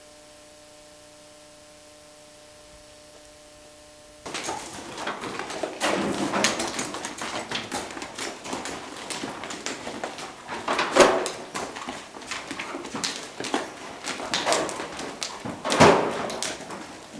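A low steady electrical hum for about four seconds. Then, starting suddenly, a dense run of knocks, thumps and rustling from a horse moving about in a wooden barn stall, loudest about eleven and sixteen seconds in.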